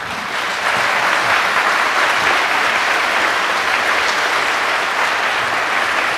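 An audience applauding steadily at the end of a talk.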